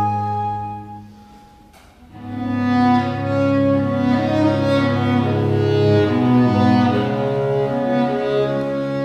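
Live chamber music for flute, violin, viola and cello: a held chord dies away, a brief pause with a small click, then the bowed strings come in with a new phrase.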